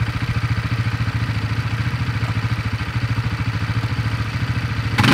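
Quad bike engine idling steadily with an even pulsing beat while the ATV sits bogged in soft sand and won't move forward; right at the very end it is suddenly revved hard.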